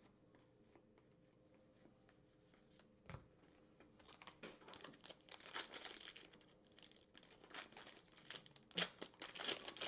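Foil wrapper of a trading-card pack crinkling and tearing as it is opened by hand, in irregular bursts that start about four seconds in after near silence. A single sharp click comes just before.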